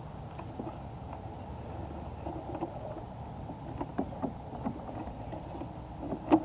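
Handling noises from wires being tugged at an electric lawn mower's control board: scattered light clicks and knocks, with one sharp knock near the end, over a steady low background rumble.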